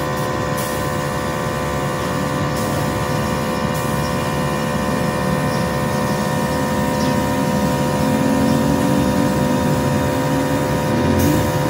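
Gravity-feed paint spray gun hissing steadily as it sprays paint onto a hydraulic bottle jack, over a steady mechanical hum.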